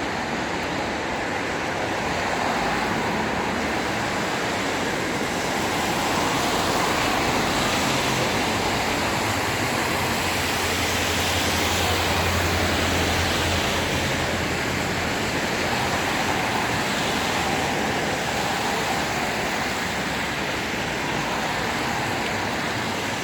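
Steady street traffic noise. A vehicle's low rumble swells about a third of the way in and fades a few seconds later.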